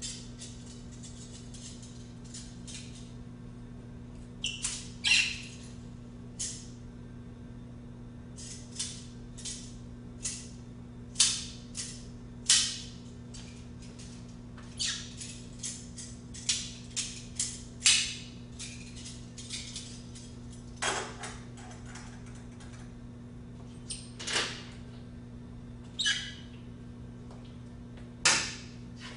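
Metal speculum being worked open and shut in the hands, giving irregular sharp metallic clicks and clacks, over a steady low electrical hum.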